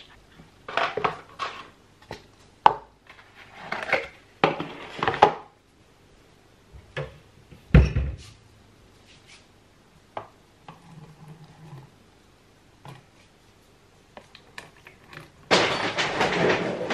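Dry dog food and plastic dog bowls being handled on a kitchen counter as the dogs' meal is dished up: a run of short rustling, rattling scoops, one heavy knock about halfway, scattered light clicks, then a dense steady rattle near the end.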